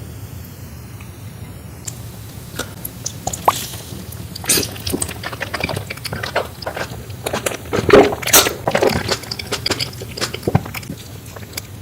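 Close-miked eating: a person biting and chewing food, heard as irregular wet clicks that start a couple of seconds in and are densest and loudest about eight seconds in, over a steady low hum.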